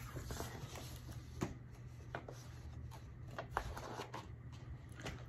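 Faint rustling and a few soft clicks of a large paper picture book being handled and its page turned, over a low steady hum.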